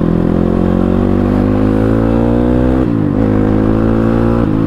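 CX300c motorcycle with both dB killers removed from the exhaust, running under way: the engine note climbs steadily, falls sharply and picks up again about three seconds in, and dips once more near the end.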